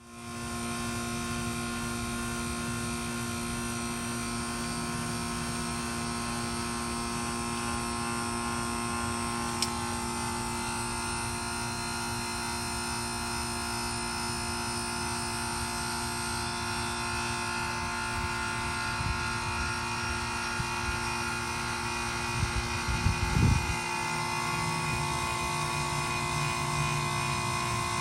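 Two Lennox Merit Series 2-ton heat pump outdoor units running steadily: a constant compressor and fan hum with several steady tones over a wash of airflow noise. A few low thumps come near the end.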